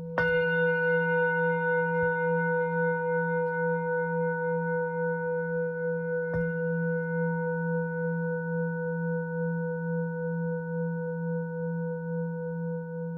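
Metal bell ringing with a deep, pulsing hum. It is struck just after the start and again about six seconds in, and each strike adds brighter overtones that slowly fade.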